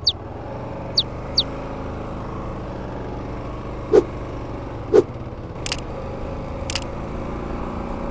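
Kawasaki KLR 650's single-cylinder engine running steadily as the bike moves off, growing slightly louder. A few brief high chirps come in the first second and a half, and several short sharp blips come a few seconds in.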